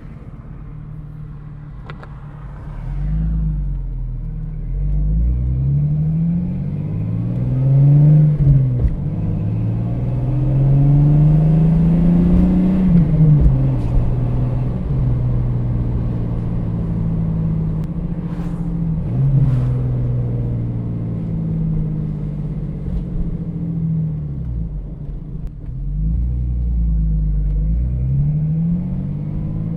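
1989 Jeep Cherokee XJ's 4.0 L inline-six running through a Flowmaster 40 Series Delta Flow muffler while the Jeep drives. The exhaust note climbs in pitch under acceleration and drops back several times as gears change, with a deep rumble near the start and the end.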